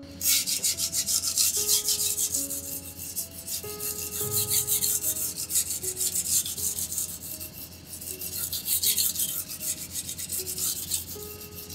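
Chef's knife edge being sharpened on a coarse 240-grit water whetstone: a gritty scraping rasp repeated in quick back-and-forth strokes. Soft piano music plays underneath.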